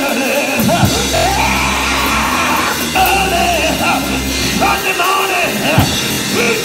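Church band music, with a drum kit and sustained low chords, plays under a man's voice chanting in long, sung phrases that bend up and down in pitch. This is the sung cadence of a preacher closing a sermon.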